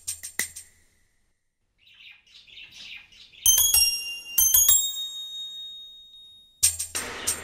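A small bird chirps briefly, then two bright chime-like bell strikes ring out and fade. A ticking music beat comes back near the end.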